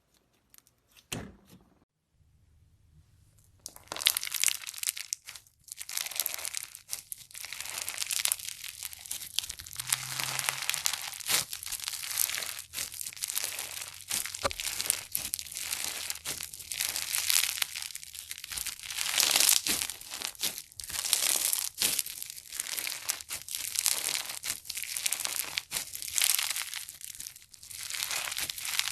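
Slime being squeezed and pressed by hand, with a dense, continuous crackling and popping that starts about four seconds in, after a few soft clicks.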